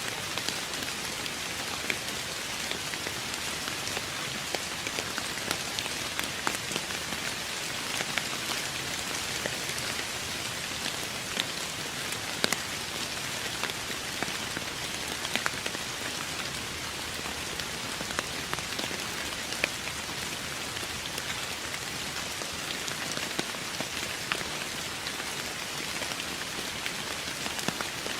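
Steady rain falling on a surface, an even hiss with many sharp individual drops hitting close by.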